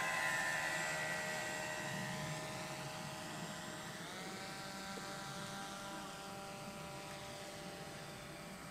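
Electric motor of a foam RC F-14 model jet whining steadily in flight, its pitch stepping up about four seconds in and the sound growing fainter as the plane climbs away.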